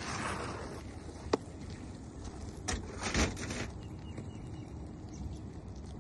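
Steady outdoor background noise with a single sharp click about a second in and a few brief scuffing noises in the middle.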